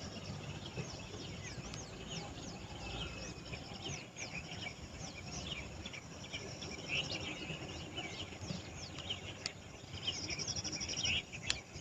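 Wild birds chirping and calling over a steady insect buzz, with many short falling chirps throughout and a fast even trill near the end. A low rumble runs underneath, and a sharp click comes shortly before the end.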